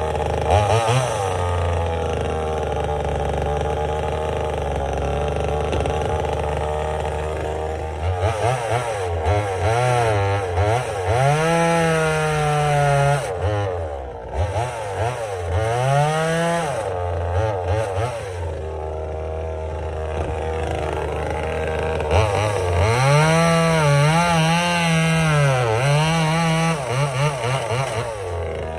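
Small 25.4cc two-stroke top-handle chainsaw idling steadily for several seconds, then revved up and down in repeated bursts, dropping back to idle between them, as it is run in nice and easy while new.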